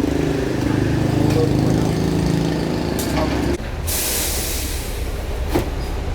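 A steady motor hum that cuts off suddenly a little over halfway through, followed at once by a short burst of hiss, then a couple of sharp clicks.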